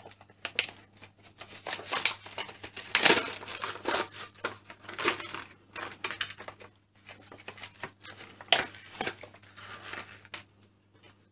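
Clear plastic toy packet being crinkled and torn open by hand. The crackling comes and goes unevenly, loudest about three seconds in and again a little before nine seconds.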